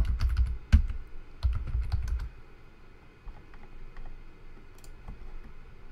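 Typing on a computer keyboard: a quick run of key clicks with dull thuds under them for the first two or three seconds, then a few scattered keystrokes.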